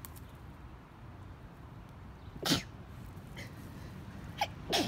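A person sneezing, which the sneezer puts down to allergies: one loud sneeze about halfway through, then a short sharp one and a fuller sneeze near the end.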